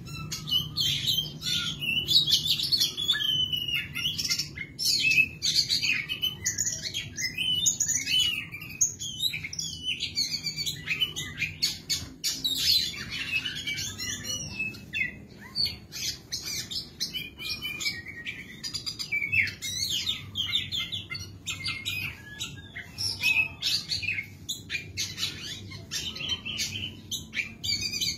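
Oriental magpie-robin (kacer) singing at full voice: a rapid, unbroken song of varied whistles, trills and sharp clicking notes.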